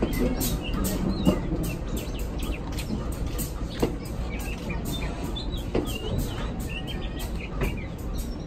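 Ex-Musashino Line 205 series electric train cars rolling slowly past: a steady low rumble with a wheel knock about every two seconds, and birds chirping.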